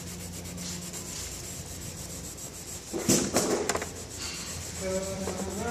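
Cloth rubbing against an aluminum folding-chair leg in steady wiping strokes, with a louder, rougher stretch of rubbing about three seconds in.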